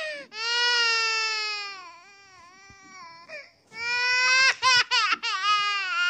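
Baby crying: a long high wail that sinks and fades, a short cry, then a louder wail broken by several sobbing catches near the end.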